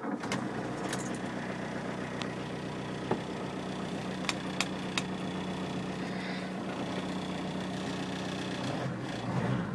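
1989 Volkswagen Caddy Mk1's 1.6-litre diesel engine idling steadily, heard from inside the cab, with a few light clicks.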